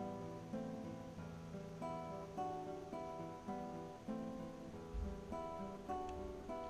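Background music: acoustic guitar playing a steady, repeating picked pattern.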